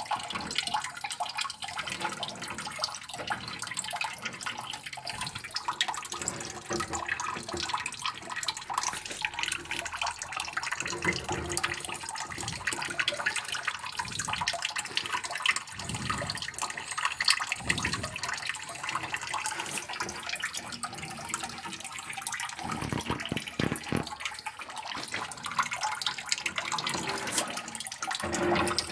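Water sloshing and trickling inside an asbestos-cement water tank as it is cleaned, with a few brief deeper swishes as the water is stirred.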